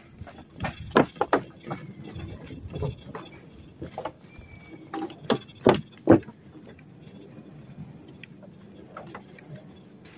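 Footsteps on a wooden plank boardwalk: irregular knocks and clacks of the boards underfoot, loudest about a second in and around six seconds in. A steady, high-pitched insect drone runs underneath.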